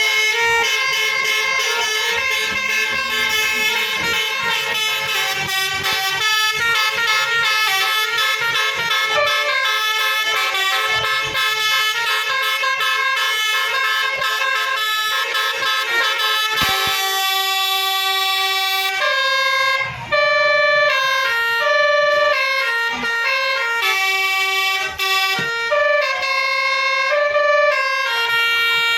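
Basuri telolet horn of the QQ Trans 'Winspector' bus playing a long run of melodic tunes, several horn notes at once stepping quickly up and down. About two-thirds of the way through the tune thins to clearer single notes.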